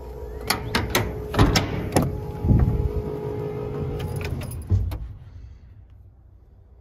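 Truck cab door being opened and a person climbing up into the cab: a series of latch clicks, knocks and a heavy thump. The door shuts with a knock about five seconds in, after which the sound is muffled and much quieter.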